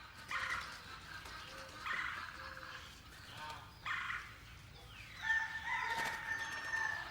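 Farmyard chickens calling: short calls about every two seconds, then one long held call, like a rooster's crow, from about five seconds in.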